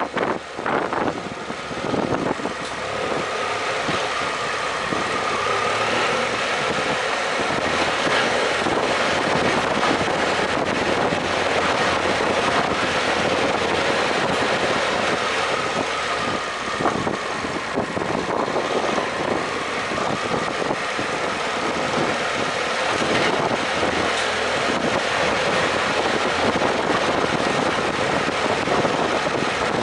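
BMW F800GS parallel-twin engine running steadily as the motorcycle rides over a gravel track, heard from the rider's helmet.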